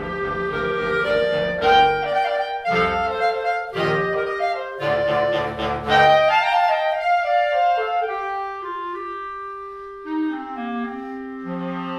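Clarinet choir playing: a run of short, accented chords with brief gaps between them in the first half, then softer held notes, with a low part coming back in near the end.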